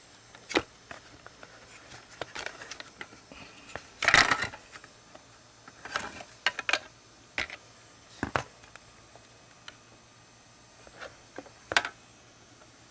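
Parts of a Dyson vacuum cleaner's motorised brush head being handled during disassembly: scattered clicks and knocks, with the loudest, a short clatter, about four seconds in.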